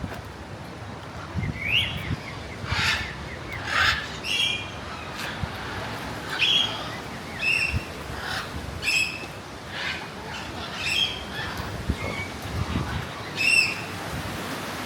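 Parrots squawking: a string of short, harsh calls, roughly one every second, some rising sharply in pitch.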